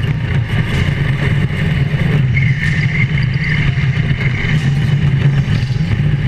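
Drift kart's small engine running at a steady, fairly high speed under throttle, heard from on board. About two and a half seconds in, a brighter hiss joins it for a second or so as the PVC-sleeved rear tyres slide on the asphalt.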